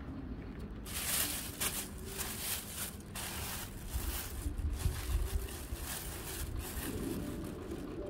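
Plastic bag crinkling and rustling as handfuls of dried deodeok root peels are pulled out of it, in irregular bursts starting about a second in.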